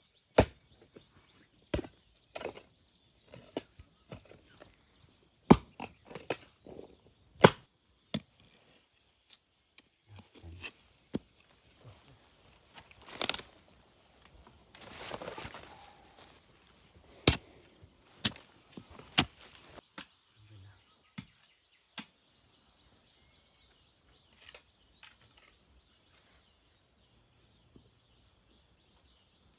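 Irregular sharp knocks and cracks, about twenty of them, bunched in the first twenty seconds, with a longer rustling scrape about fifteen seconds in. Insects buzz steadily behind them.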